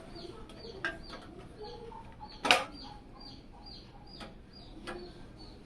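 A bird chirping over and over, short falling high chirps about two or three a second, with a few sharp clicks, the loudest about halfway through.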